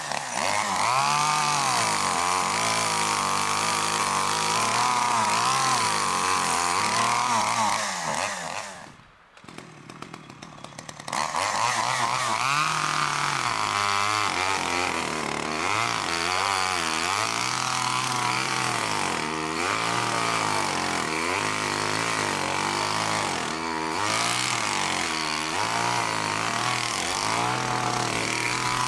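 Chainsaw cutting up a felled birch trunk, its engine revving and bogging as it works through the wood. About a third of the way in it drops off to idle for a couple of seconds, then revs up and cuts on.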